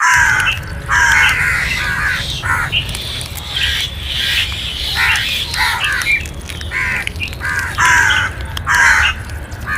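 Crows cawing: a rapid series of harsh caws, about a dozen, some overlapping as though from more than one bird, over a steady low rumble.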